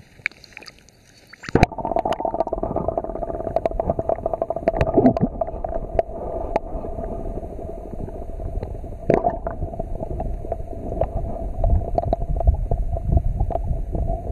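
Muffled rushing and gurgling of river current heard through a camera held underwater, thick with deep rumble and scattered sharp clicks and knocks. It starts suddenly about a second and a half in, as the camera goes under; before that there are only a few faint clicks.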